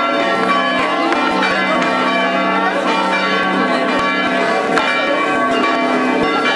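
Church bells ringing continuously, many tones overlapping, with some voices underneath.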